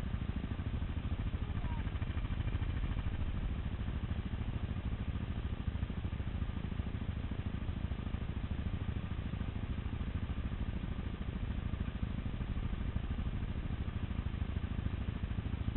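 Quad (ATV) engine running steadily as it rides along a trail, a constant low rumble with no revving changes.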